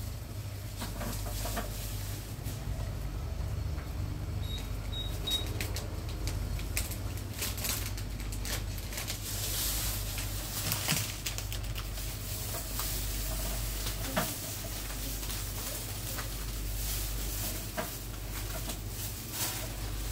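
Thin plastic shopping bags crinkling and rustling, with small knocks of goods handled and packed on a shop counter, over a steady low hum. Three short high electronic beeps about five seconds in.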